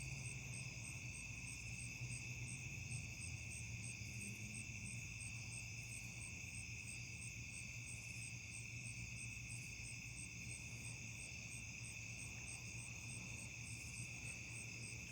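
Night chorus of crickets and other insects trilling steadily, with one high chirp pulsing evenly about three or four times a second, over a faint steady low hum.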